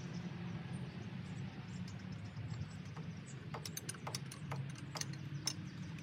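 Hand tools and metal fittings clicking and clinking as coolant hoses are worked off a Caterpillar C15 engine: scattered sharp clicks, thicker in the second half, over a steady low hum.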